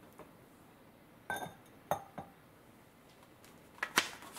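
Ceramic Pikachu lid being set onto a small ceramic rice pot, clinking against the rim several times with brief ringing; the loudest clink comes near the end.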